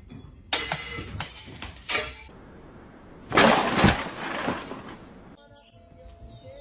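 Crashes and clattering of something breaking, like shattering glass, with the loudest crash about three and a half seconds in dying away over a second or two.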